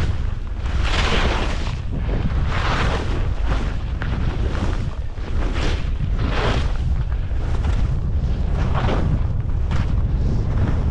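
Skis hissing and scraping through snow, a swish with each turn repeating every second or two, over a steady low rumble of wind buffeting the microphone.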